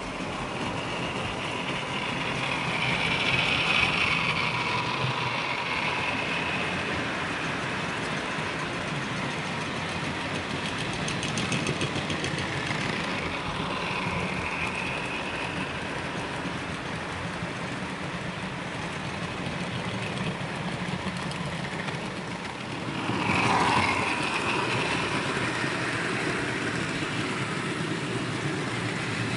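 Model Peak-class diesel locomotive's engine sound, running steadily as it hauls a train of fish vans through the station, with the rumble of the train rolling on the track. The sound swells louder briefly about two-thirds of the way through.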